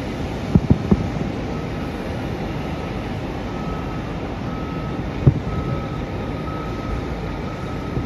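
Distant fireworks going off: three quick booms just under a second in and one more about five seconds in, over a steady low rumble. A vehicle reversing alarm beeps repeatedly, settling into an even series from about halfway through.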